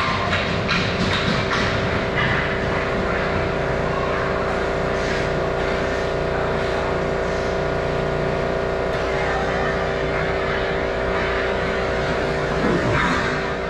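Ice rink game ambience: a steady machine hum under scattered sharp clicks and scrapes of sticks and skates on the ice in the first couple of seconds, with players' voices near the end.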